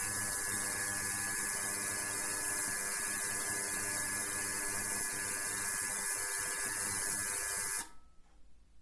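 Ultrasonic cleaner running its roughly 20 kHz transducer in degas mode, stirring the water in its stainless tank: a steady hiss with a steady hum underneath. It cuts off suddenly near the end as the degas cycle switches the ultrasound off by itself.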